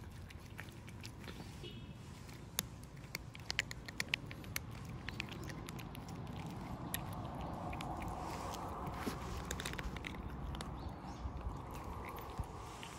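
Stray cats eating, crunching and chewing their food in many sharp, irregular clicks. Under it runs a low steady rumble, and a hiss swells in the middle.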